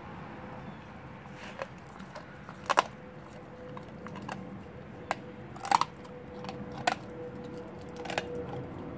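Young Blue Bay Shepherd chewing a raw rabbit's rib cage and front legs, with several sharp crunches as its teeth crack the bones. The loudest crunches come about three seconds in and again just before six seconds, over a faint steady hum.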